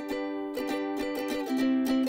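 Background music on a plucked-string instrument in a steady rhythm, with a change of chord about one and a half seconds in.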